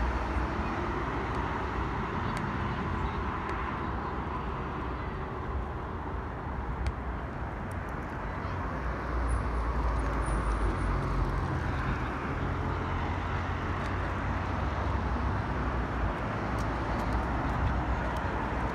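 City road traffic: a steady wash of cars passing on a multi-lane street, with a deeper low rumble from about six to eleven seconds in.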